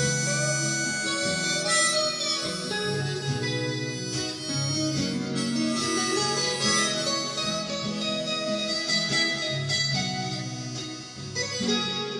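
Acoustic guitar playing an instrumental passage between sung verses of a folk song, with chords and held notes ringing over one another.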